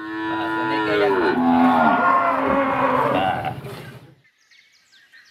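A cow mooing: one long call of about four seconds, its pitch bending lower about a second in, then dying away.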